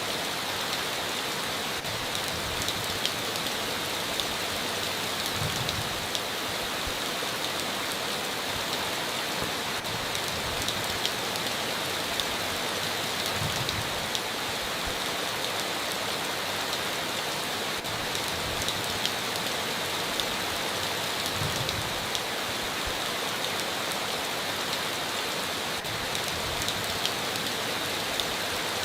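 Heavy rain falling steadily on a tin roof, a dense even hiss dotted with sharp drop hits. A faint low thud recurs about every eight seconds.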